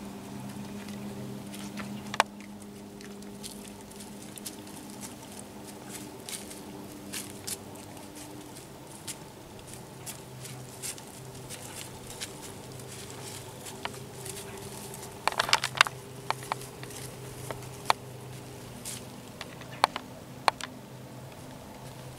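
Whitetail buck's hooves stepping through dry leaves and grass: scattered crackles and rustles, with a quick run of steps about fifteen seconds in, over a faint steady hum.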